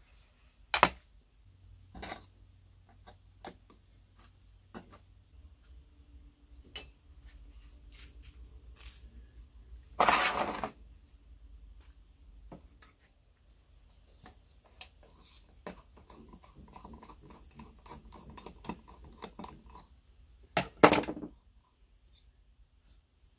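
Handling noise from an old kerosene stove's enamelled-steel wick holder being worked on a wooden bench: scattered clicks and knocks of metal, a loud scraping rattle about ten seconds in, a run of light scraping a few seconds later, and a loud double clatter near the end.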